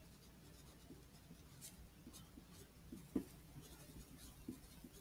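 Faint scratching of a wooden pencil on paper as words are handwritten, with one slightly louder stroke about three seconds in.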